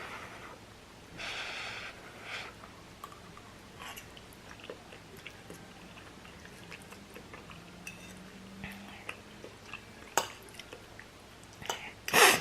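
A person chewing spicy ramen noodles with quiet wet mouth clicks and smacks. Near the end comes a sudden loud cough as the spice catches her throat.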